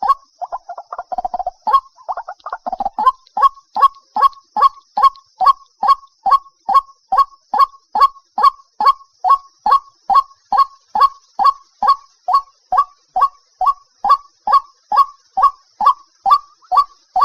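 White-breasted waterhen (dahuk) calling: a long run of loud, evenly repeated croaking notes, about two and a half a second, each dropping in pitch, after a rougher jumbled burst in the first few seconds.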